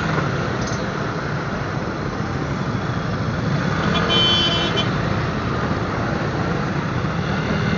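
Motorcycle riding in traffic, with a steady engine and road-noise hum. About four seconds in, a vehicle horn toots once for under a second.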